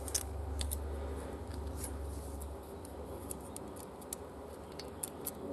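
Small metallic clicks and scrapes of a steel feeler-gauge blade being pushed at the valve clearance under the rocker arm of a Honda Transalp V-twin, over a low hum that fades about halfway. The 0.15 mm blade will not go in: the valve clearance is tight.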